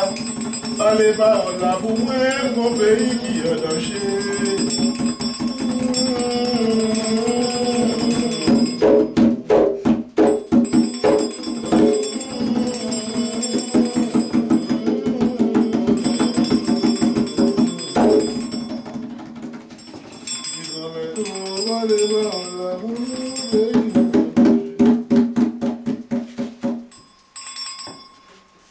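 Voices singing a chant, backed by a rapidly shaken rattle and the steady ringing of a small bell; everything stops suddenly just before the end.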